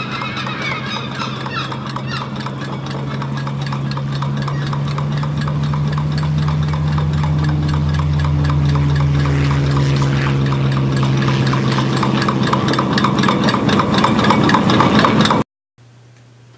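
Rapid, even mechanical clatter over a steady low hum, slowly growing louder, then cutting off suddenly near the end.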